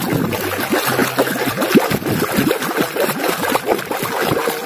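Water splashing and trickling as a muddy toy is rinsed clean, a continuous irregular wash of water.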